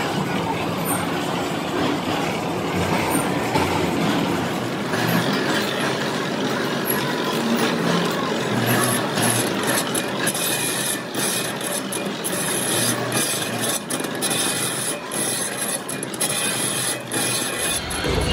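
Large manual lathe turning a huge spoked gear blank, the cutting tool scraping steadily against the rotating metal rim with a rasping, crackling noise. A deeper rumble comes in near the end.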